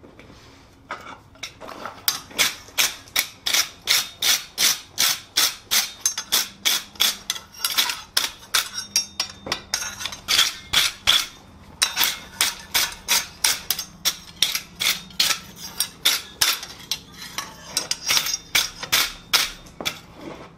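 Wire brush scrubbing a forged iron hook in quick back-and-forth strokes, about three a second, with a few short pauses.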